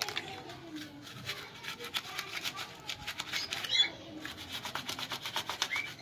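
Plastic scrub brush scrubbing small plastic bird feeding and water cups with detergent: quick repeated strokes of bristles rasping on plastic.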